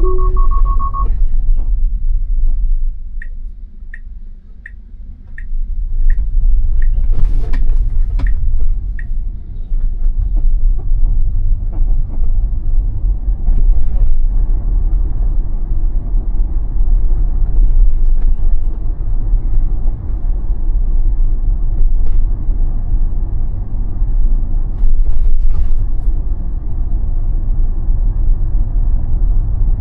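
Steady low road and tyre rumble inside the cabin of a Tesla Model Y electric car on the move. About three seconds in there is a run of even turn-signal ticks, two or three a second, lasting several seconds, while the rumble briefly drops and then comes back.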